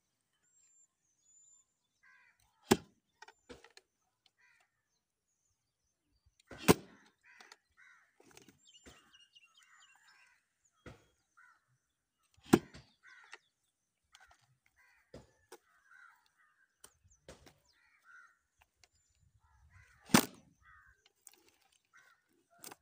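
Four heavy axe blows, spaced several seconds apart, driven into a large log that is already split open, with smaller knocks between them. Crows caw repeatedly in the background.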